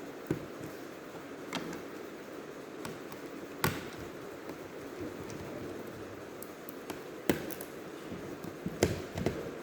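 Scattered sharp clicks and taps from hands working on a laptop's parts and tools during disassembly, about six in all, several seconds apart, over a steady low background hiss.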